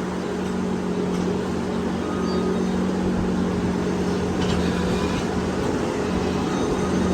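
Loader engine running steadily at an even speed, a constant low hum with a higher overtone, over a rush of background noise.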